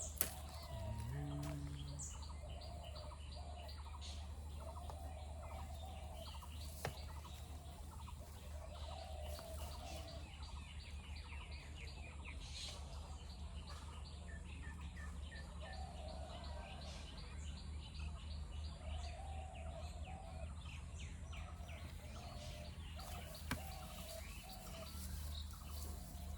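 Forest birds calling: a low call repeated in short phrases every couple of seconds, with fainter high chirps and trills over a steady low rumble.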